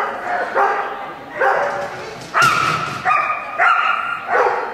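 A dog barking over and over, about six loud barks at a steady pace of roughly one every two-thirds of a second.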